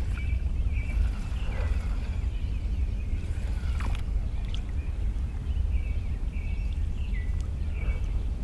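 Steady low rumble of a canoe moving on open water, with short high tones now and then and a few faint clicks.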